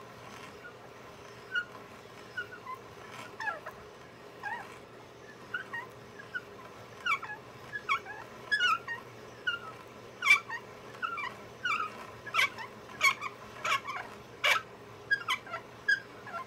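Hand brace and bit boring through a poplar board, squeaking and creaking in short chirps as it turns, the squeaks coming closer together and joined by sharp clicks in the second half.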